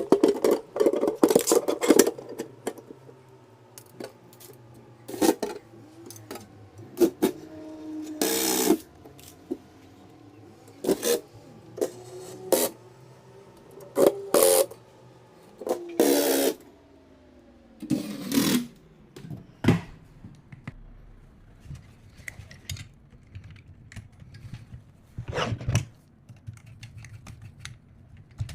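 Hands fitting a liquid CPU cooler: scattered clicks, knocks and short rubbing, scraping noises of parts and tools being handled. For the first part a steady hum with a gently drifting pitch runs underneath, and it stops about two thirds of the way through.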